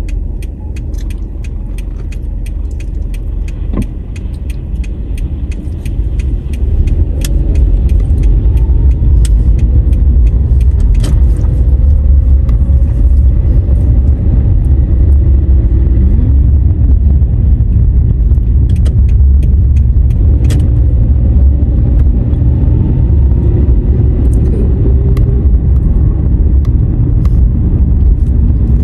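Car interior while driving: a steady low rumble of engine and tyre road noise. It grows louder about six or seven seconds in as the car pulls away and gets up to speed, with faint rising and falling engine pitch. Small clicks and rattles are scattered through it.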